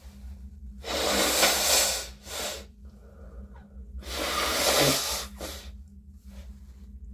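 A person with a cold blowing their nose hard twice, each blow about a second long and followed by a short puff, then a few soft sniffs and breaths.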